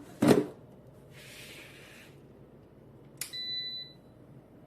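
A loud clatter just after the start. Then a brief hiss, and about three seconds in a click followed by a steady electronic beep of under a second from an oven's control panel being set.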